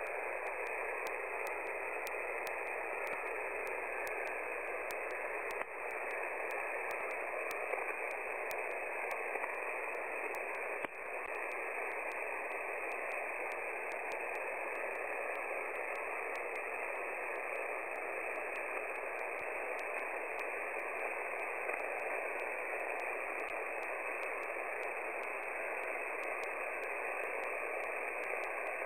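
Steady hiss of shortwave band noise from an amateur radio receiver on the 20-metre band, heard through its narrow voice passband. It dips briefly twice, about 6 and 11 seconds in.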